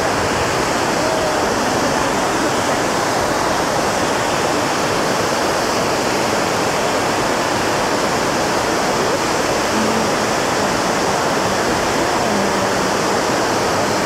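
A waterfall rushing, a steady, even sound of falling water that does not change.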